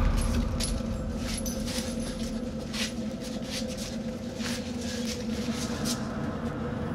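A deep boom dying away in the first moment, then a low steady hum with scattered sharp clicks and crackles at irregular intervals.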